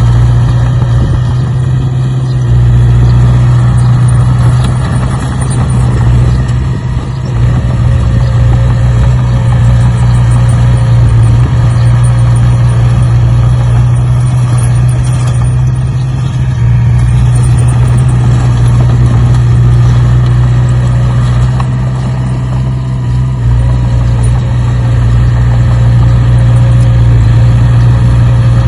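An engine running steadily at idle: a loud, even, low drone that hardly changes.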